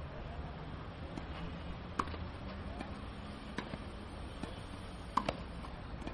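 Tennis balls struck with a racket at the net, volleys sounding as sharp pops roughly every one and a half seconds, the last two close together, over steady outdoor background noise.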